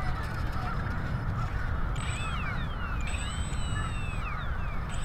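Wind buffeting the microphone in a steady low rumble, with the thin whine of the E-flite UMX Turbo Timber Evolution's small electric motor sliding down in pitch several times as the throttle comes back.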